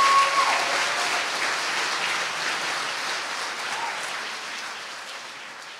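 Audience applauding, fading out steadily.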